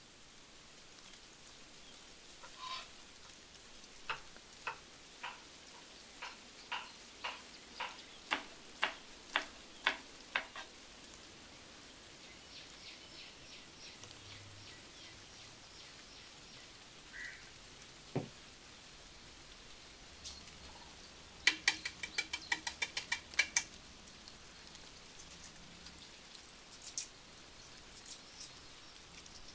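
Sharp taps and knocks from food preparation. A run of about a dozen taps grows louder, a single knock follows, and near the end there is a quick flurry of louder, ringing taps.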